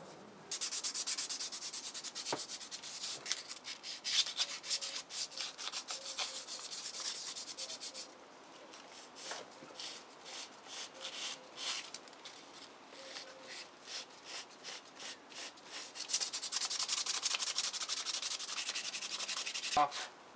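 A transmission shaft rubbed clean by hand in quick back-and-forth strokes, a dry scratchy hiss, readying it so the seal can slide over without damage. The rubbing is brisk and loud for the first several seconds, slows to quieter, spaced strokes, and picks up again near the end.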